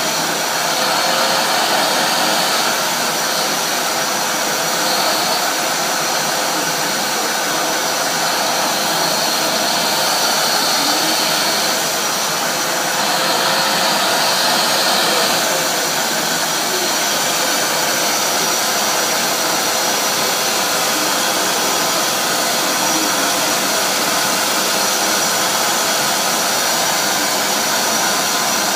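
Vacuum cleaner running steadily as its floor brush is run through a cat's fur on a carpet: a loud rush of air with a thin high whine over it, swelling slightly a couple of times.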